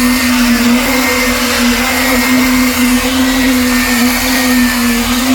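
A machine running steadily: a constant droning hum with a high whine and an even rushing noise over it.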